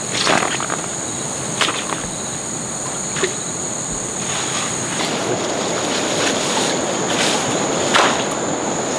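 Steady high insect drone with rustling of tall grass and reeds being pushed through, broken by a few sharp crackles. From about halfway a rough, splashy wash comes up as a mesh fish trap is lowered into shallow flood water.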